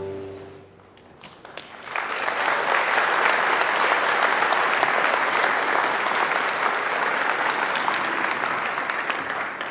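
Audience applauding after a piece of music. The music's last note dies away, a few scattered claps follow, and then full applause starts about two seconds in and thins out near the end.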